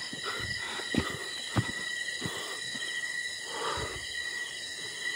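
Steady high-pitched drone of night insects, with a few soft thumps of footsteps on a dirt path and some rustling.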